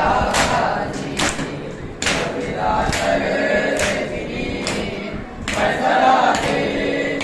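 A group of men beating their bare chests with open palms in unison (matam), one sharp slap about every second, over men's voices chanting together in chorus.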